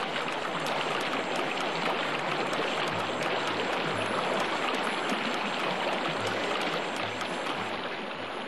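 Steady rush of running water, with a few faint short low tones underneath.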